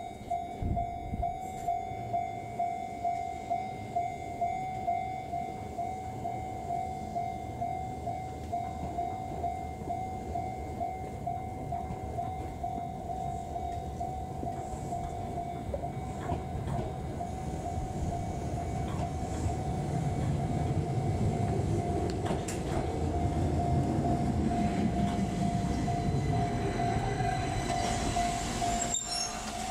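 Railway level-crossing alarm ringing a steady tone about twice a second, over the rumble of a Keihan 800 series electric train. The train's rumble grows louder about halfway through as it runs into the station, then eases off near the end as it comes to a stop.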